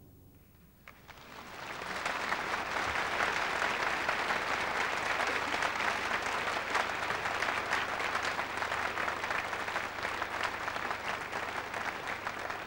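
A large concert-hall audience applauding. After about a second of near silence, while the final orchestral chord dies away, the applause swells up over a second or so and then holds steady.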